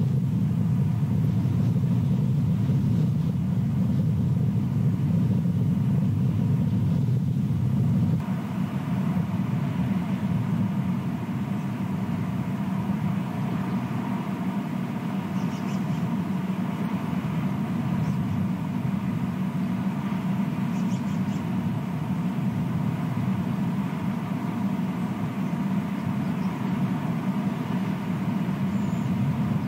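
Steady low rumble of outdoor background noise, easing slightly about eight seconds in.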